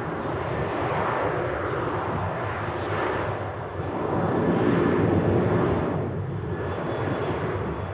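Boeing 737 airliner's twin turbofan engines at takeoff thrust as it accelerates down the runway on its takeoff roll. A steady rushing engine noise that swells and fades in slow waves, loudest about five seconds in.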